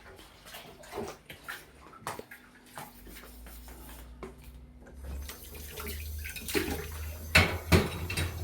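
Kitchen tap running into a sink during hand dishwashing: light clinks of dishes at first, then the water comes on about five seconds in and runs steadily, with two sharp knocks of crockery near the end.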